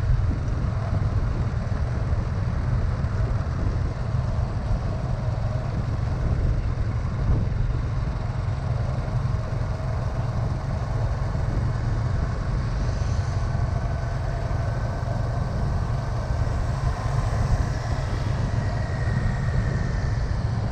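A small vehicle engine running steadily under way, with a constant low drone and road noise.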